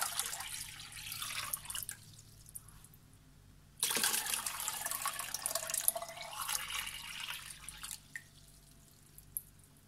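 Water pouring into a glass bowl and splashing onto blended orange and lemon purée. The first pour trails off about two seconds in; a second pour starts suddenly about four seconds in and stops near the end.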